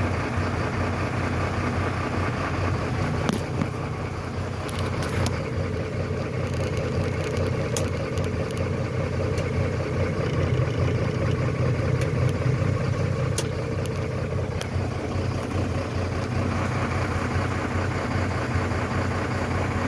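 Mercedes-Benz Econic garbage truck's diesel engine idling steadily, heard from inside the cab, with a few sharp clicks scattered through the middle.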